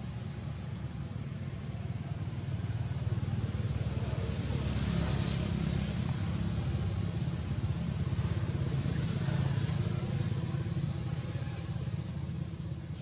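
Low, steady rumble of a motor vehicle's engine, swelling louder through the middle, with a few faint high chirps above it.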